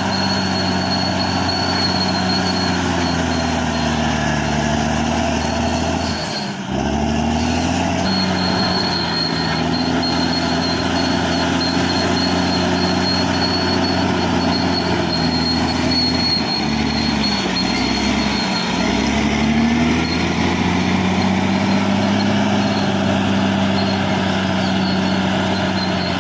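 Caterpillar D6R XL bulldozer's diesel engine running steadily, its pitch sagging briefly under load about a quarter of the way in and again about two-thirds through, with a steady high whine over it.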